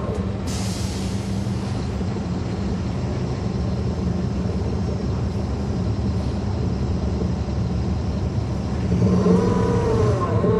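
Caterpillar C13 diesel engine of a 2009 NABI 40-foot transit bus running steadily, with a sudden hiss about half a second in. Near the end the level rises and the bus's axle whine comes in, bending up and down in pitch.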